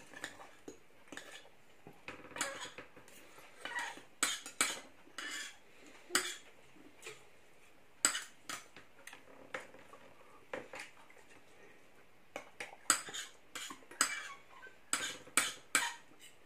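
Knives and forks clinking and scraping on ceramic dinner plates as two people cut and eat their food: irregular sharp clicks with short scrapes between them.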